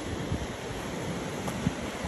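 Wind buffeting the microphone over a steady wash of ocean surf, with one light knock a little past the middle.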